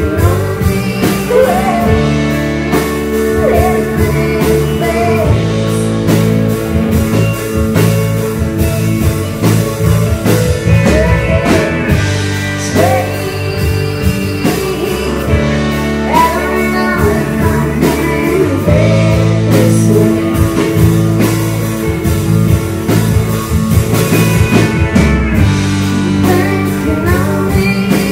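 Live rock band playing: a woman singing lead over electric guitar, bass and a drum kit.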